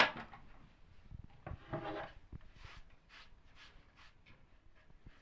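Kitchen utensils being handled while preparing a mixture: a sharp knock at the start, then brief scraping about two seconds in, and faint light taps and scrapes after.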